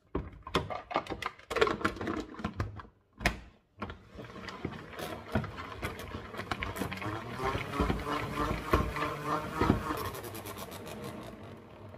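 Plastic salad spinner: the basket and lid knock into place, then the basket is spun by hand with a steady whirring rattle that winds down near the end, spinning the water off freshly washed shredded puntarelle.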